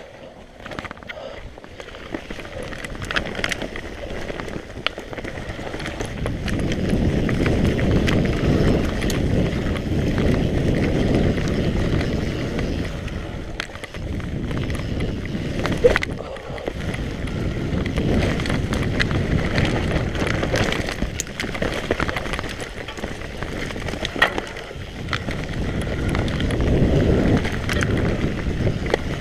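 Mountain bike riding down a dirt trail: a steady rumble of tyres over the ground with scattered knocks and rattles from the bike, getting louder about six seconds in and rising and falling after that.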